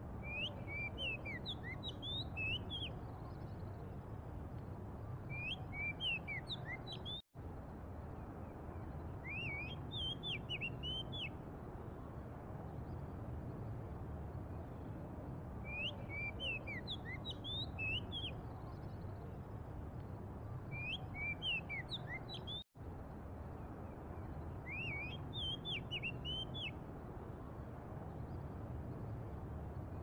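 Oriental magpie-robin singing: short phrases of clear, varied whistled notes that come again about every four to five seconds, over a steady low background rumble. The sound cuts out completely for an instant twice.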